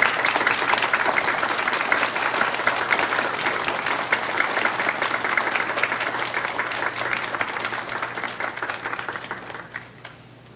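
Audience applauding: dense, steady clapping that dies away about ten seconds in.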